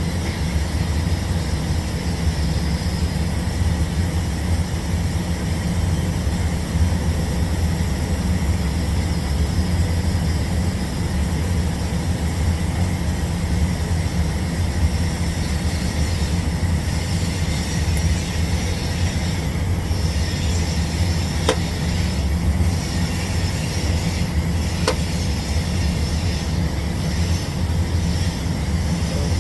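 Steady low hum and hiss of welding equipment running through a TIG root pass on pipe, unbroken, with two faint ticks in the second half.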